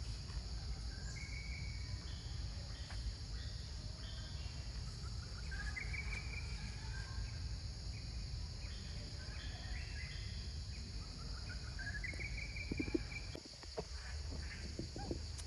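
Tropical forest ambience: a steady high insect drone over a low background rumble, with short bird notes and two drawn-out rising whistled calls, one a little before the middle and one near the end.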